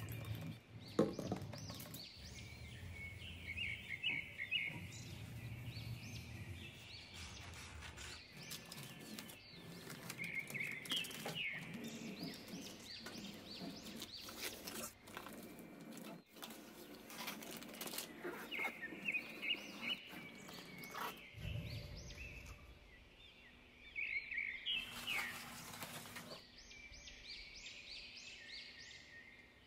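Small birds chirping over and over, with handling noises from cleaning a counter. A spray bottle squirts a few times near the start, followed by scattered clicks and rustles of wiping and laying down shelf-liner paper.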